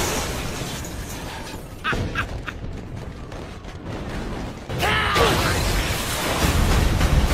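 Battle sound effects: a low rumble of explosions, with a few short metallic clinks about two seconds in. About five seconds in the rumble jumps louder as a man shouts an order to fire.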